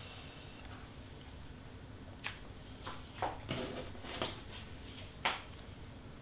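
Cut cardstock pieces being handled and shifted on a work surface: a brief paper slide at the start, then about five light taps and rustles spaced irregularly.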